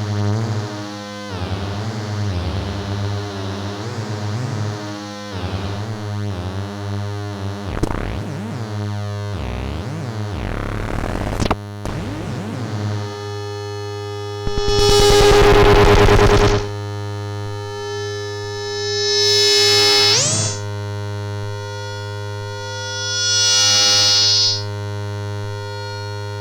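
Modular synthesizer tones run through a Sound of Shadows PT2399 digital delay module. For about the first half, warbling, pitch-bending notes smear into repeating echoes. Then a steady buzzy drone takes over, swelling louder and brighter about every four seconds, and one swell ends in an upward glide.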